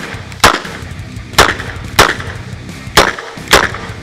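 Ruger GP100 Match Champion revolver firing five shots, spaced about half a second to a second apart.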